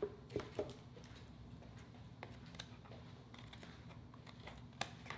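Faint, scattered clicks and taps of a boiled lobster claw's shell being handled and cut with kitchen shears.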